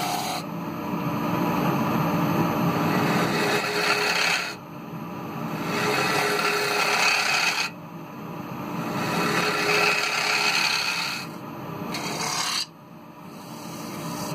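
Gouge cutting the inside of a spinning kiln-dried ash bowl on a wood lathe, a rough scraping hiss in several passes of a few seconds each. Between the passes there are short dips where the lathe's steady hum is left.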